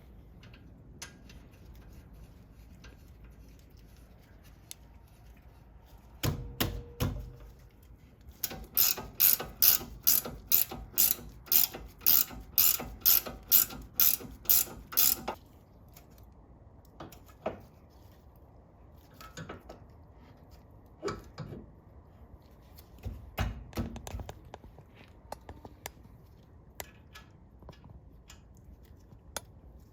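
Hand ratchet wrench clicking in quick strokes, about two or three a second for several seconds in the middle, with scattered single clicks and a couple of low knocks around it.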